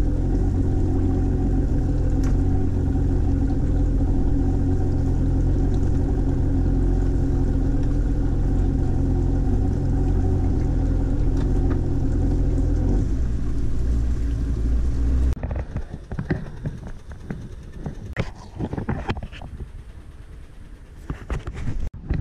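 Boat engine idling steadily at slow harbour speed, its note dropping a little before it cuts off suddenly about two-thirds of the way through. Irregular knocks and rustling follow.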